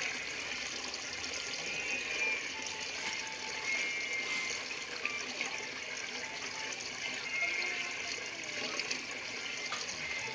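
Water running and splashing steadily, a constant hiss.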